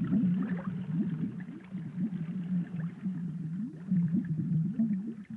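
Underwater ambience sound effect: low warbling tones that keep sliding up and down in pitch.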